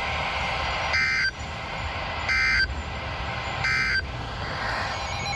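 Emergency Alert System end-of-message code: three short bursts of two-tone digital data warble, about 1.3 seconds apart, over steady radio hiss, signalling the end of the warning broadcast.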